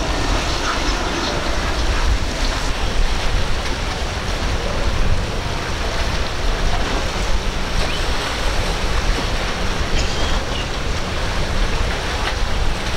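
Steady rush of wind, waves and boat spray, mixed with the drone of outboard engines on center-console boats running through choppy inlet water.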